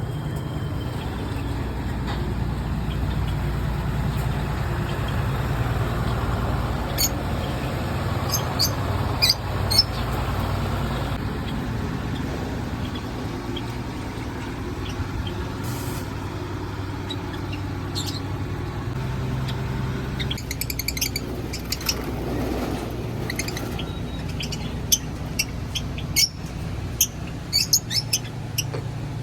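Steady low engine rumble of a vehicle, with birds chirping over it, the chirps growing more frequent in the last third.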